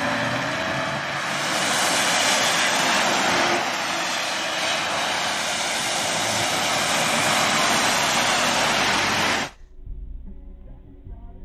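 A dashcam's microphone picks up a loud, steady rush of road and wind noise from a moving car. About nine and a half seconds in it cuts off suddenly to a quieter low rumble.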